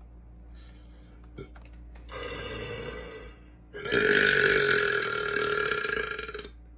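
A man burping twice: a shorter belch about two seconds in, then a louder, long drawn-out belch lasting over two seconds.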